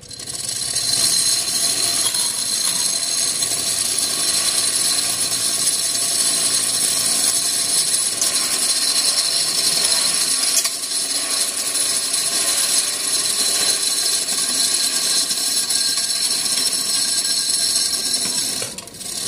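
Hand-chain hoist under heavy load: the hoist's ratchet pawl clicking and its chain rattling without a break as the hand chain is hauled to lift a turbine pump and its column pipes out of a borehole.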